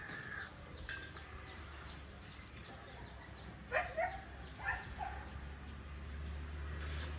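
Outdoor evening ambience: a quick run of faint, high chirps, then two pairs of short, louder animal calls about four seconds in. A low vehicle engine grows louder near the end.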